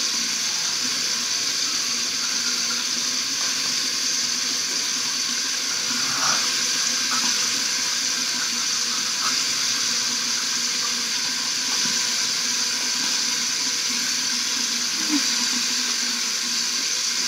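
Bathroom tap running steadily into the sink, an even hiss of flowing water.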